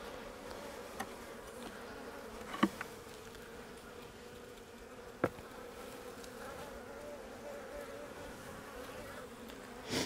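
Honeybees buzzing around an open hive, a faint steady hum. Three sharp knocks, the loudest about two and a half and five seconds in, as wooden hive frames and boxes are handled.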